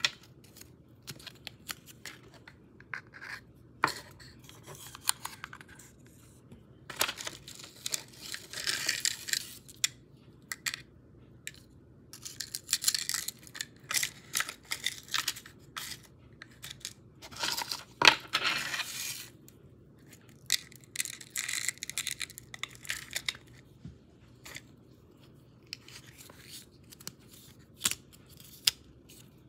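Paper and light cardboard being handled: crinkling, rustling stretches of a second or two, among many light taps and clicks of fingers on a small cardboard gift box and its lid.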